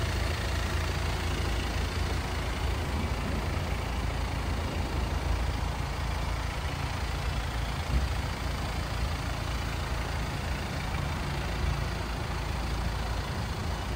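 Jeep Wrangler's diesel engine idling steadily, a low, even rumble.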